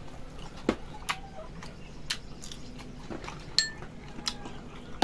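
Scattered clinks and taps of a metal spoon against small ceramic bowls and a metal serving tray, one about three and a half seconds in ringing briefly.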